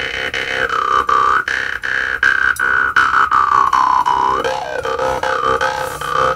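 Sesulka Rena brumle, a handmade Czech jaw harp in the key of C, plucked in a steady rhythm: a low drone under a bright overtone melody that moves up and down, with a quick upward-and-back sweep of the overtone about four and a half seconds in.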